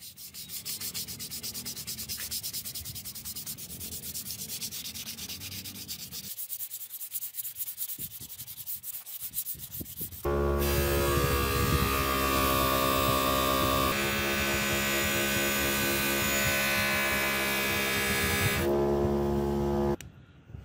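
Sandpaper rubbed by hand over a steel axe blade in quick back-and-forth scraping strokes. About halfway, a much louder steady droning sound with a hiss takes over and stops abruptly shortly before the end.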